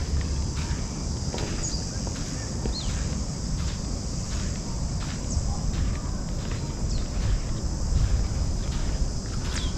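Footsteps walking over ground, about two steps a second, over a steady high insect chorus, with a few short bird chirps and a low rumble on the microphone.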